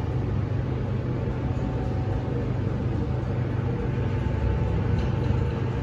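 Hydraulic elevator car travelling up, with a steady low hum and rumble from its pump and the car shaking.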